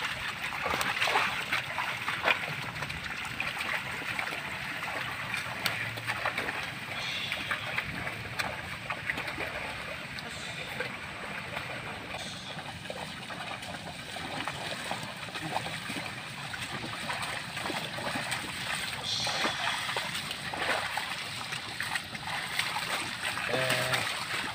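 Water buffalo hooves and a wooden plough dragged through a flooded, muddy rice paddy: irregular wet splashes and sloshing over a steady watery hiss.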